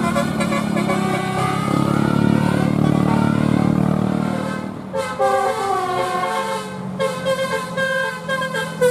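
A bus going by with its engine running. After a short drop about five seconds in, a telolet basuri musical horn plays a melody of short stepped notes.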